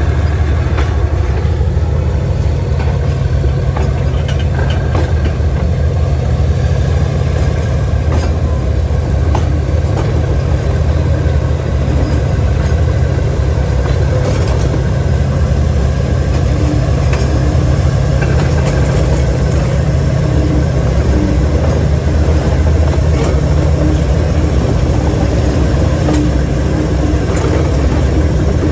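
DJ class diesel-electric locomotive running steadily under way, heard from its open end platform: a loud, even low engine rumble with a few faint clicks from the running gear.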